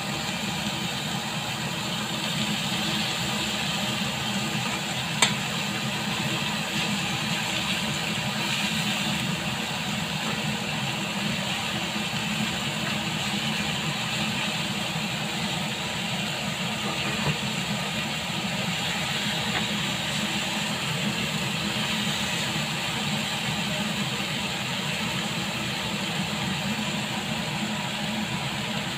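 Lamb chops sizzling steadily in a ridged grill pan over a steady low hum, with a sharp metallic click about five seconds in and a fainter one later, as metal tongs turn the chops.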